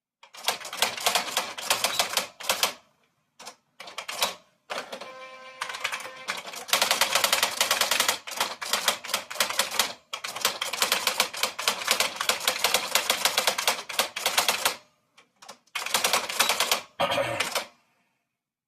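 Manual typewriter being typed on: rapid runs of key strikes in bursts of a few seconds, broken by short pauses.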